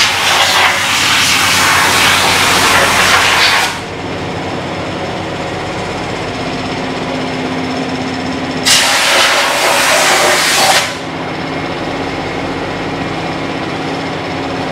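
High-pressure cleaning gun hissing at a motorcycle in two long blasts, the first ending about four seconds in and the second running from about nine to eleven seconds, over a steady low workshop hum.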